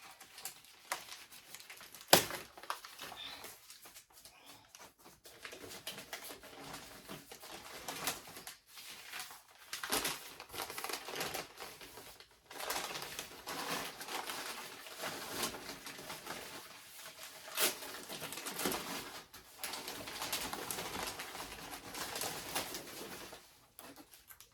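Packaging being unwrapped by hand: paper and plastic rustling and crinkling, with a few sharp taps and clicks, busier in the second half.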